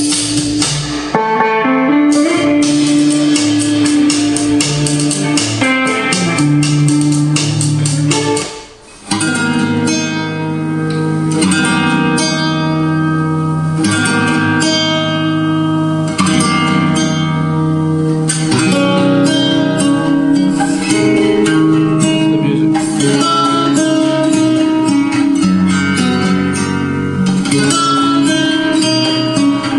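Guitar-led music played through a pair of DIY distributed-mode (DML) flat-panel speakers driven by audio exciters, heard in the room. The music dips briefly about eight and a half seconds in, then carries on.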